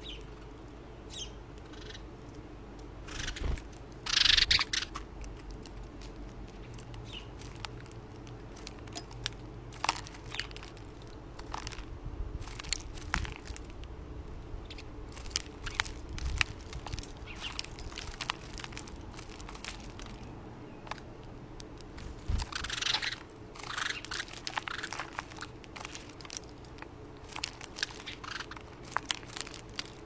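House sparrows feeding at a bowl of mixed seed: irregular small clicks and crunches of beaks picking at the seed, with two louder brief wing flutters, about four seconds in and again about twenty-three seconds in, as birds land.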